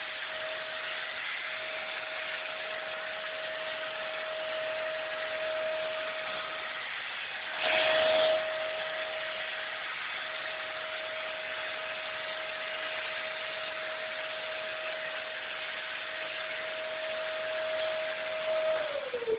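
Vacuum cleaner running steadily with a constant whine over a rush of air, sucking dust out of gas heater filters. About eight seconds in the airflow briefly gets louder, and near the end the motor is switched off and its whine starts to fall.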